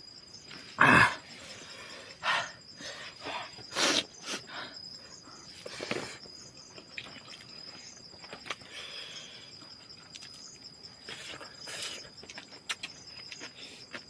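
Insects chirring steadily at a high pitch, with a scattering of short, sudden rustles and knocks, the loudest about one second and four seconds in.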